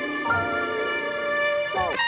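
Background music: sustained melodic instrumental notes, with a sliding pitch drop near the end.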